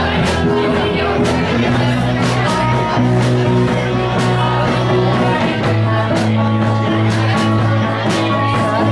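Live rock band playing, with guitar to the fore over a steady beat.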